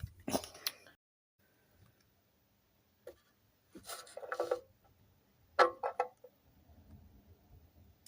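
Steel key blank and tools handled at a lever lock: a few sharp metallic clicks and short scrapes, the loudest cluster about two thirds of the way through.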